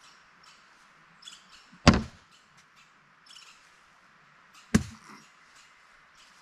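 Two cornhole bean bags landing with a thud on the cornhole boards, about three seconds apart.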